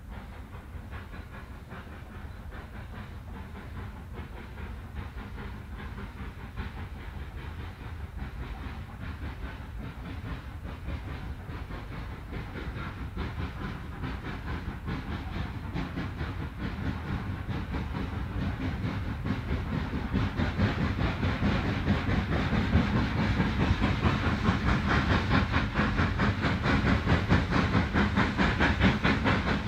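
1874 Haydock Foundry steam locomotive Bellerophon working hard with its train, its exhaust a rapid, steady chuffing that grows steadily louder as it comes closer.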